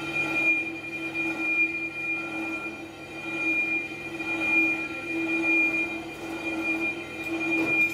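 Brake drum lathe running with a steady high-pitched whine over a lower hum, and a single knock near the end.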